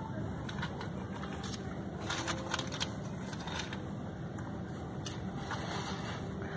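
Steady low rumble of a car rolling slowly, heard from inside the cabin, with a few sharp crackling clicks about two to three seconds in.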